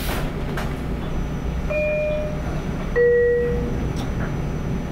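Steady low rumble of a Long Island Rail Road train car running, with a two-note descending chime from the onboard public-address system, a higher note about two seconds in and a lower, louder one a second later. The chime signals the automated station announcement.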